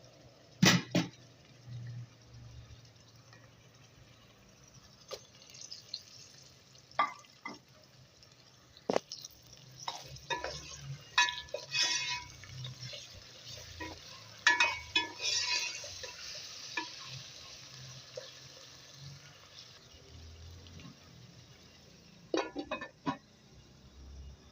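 A metal spoon and cookware clinking and scraping in scattered strokes, some with a short ringing note, busiest in the middle.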